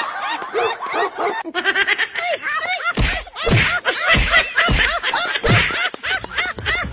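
Laughter: a run of short, rising-and-falling laughs and chuckles that goes on without a break.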